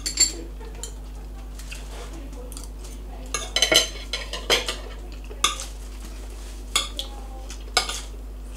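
Metal forks and spoons clinking and scraping against ceramic dinner plates as two people eat. The clicks come irregularly, with a quick cluster about halfway through.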